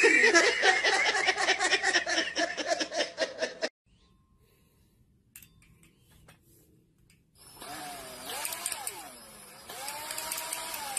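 A loud, rapid rhythmic clatter with a wavering tone over it, which cuts off abruptly nearly four seconds in. About seven seconds in, an electric drill starts spinning a two-stroke engine's crankshaft with its connecting rod and piston fitted, its motor whine rising and falling, then running steady.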